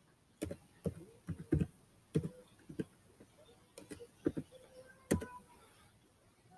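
Typing on a keyboard: a dozen or so key clicks at an uneven pace, with short pauses between groups.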